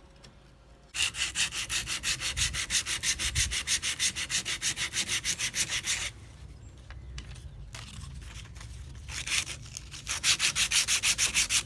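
Sandpaper rubbing by hand on a wooden knife-handle scale in fast, even back-and-forth strokes. There is a run of strokes lasting about five seconds, a pause, and then the strokes start again near the end.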